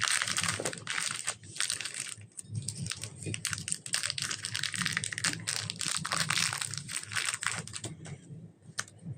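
Slime and clay being squished and mixed by hand: a dense run of sticky crackling and clicking that thins out near the end.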